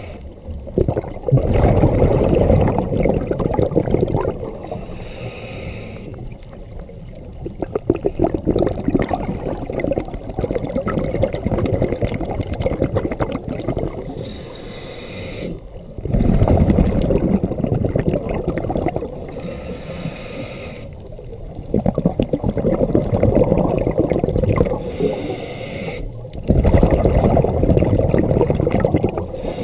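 Scuba diver breathing through a regulator underwater: each breath in is a short hiss, and each breath out is several seconds of loud bubbling, repeating every five or six seconds.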